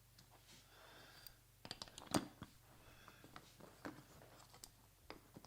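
Faint scattered clicks and light knocks of small parts being handled, as the gears of a right-angle drill adapter are greased and fitted back into the opened housing, with the strongest click about two seconds in.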